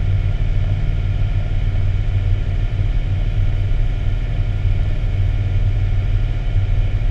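Fire engine running at highway speed, heard from inside the cab: a steady, deep engine drone with road noise.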